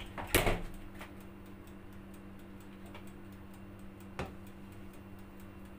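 Steady electrical hum with fast, faint, even ticking from the electric hot plate heating a pot. A loud, sharp clatter comes about half a second in, and a single knock about four seconds in.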